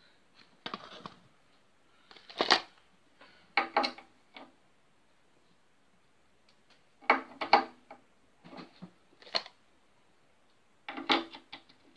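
Workshop handling noise: irregular clusters of short clicks and knocks, some with a brief low ring. The loudest comes about two and a half seconds in.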